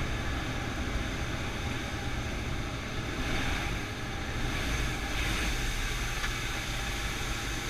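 Steady rumble and rush of a skydiving jump plane's cabin in flight: engine drone and airflow noise.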